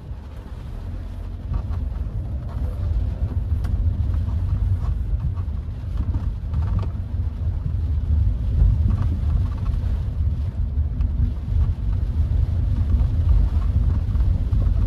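Cabin noise of a Hyundai HB20 1.6 automatic driving on a wet road in the rain: a steady low rumble of engine and tyres. It grows louder over the first few seconds.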